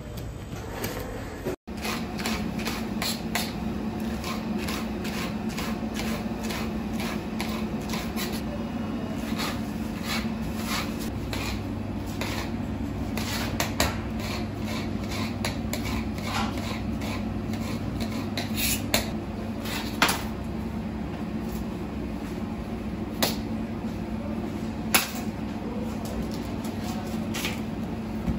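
Kitchen knife cutting tomatoes directly on a hard countertop, the blade striking the counter in irregular sharp clicks. A steady low hum runs underneath.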